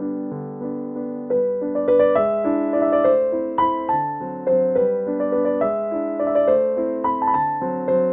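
Background piano music: a keyboard playing a melody with chords, notes struck at an even pace.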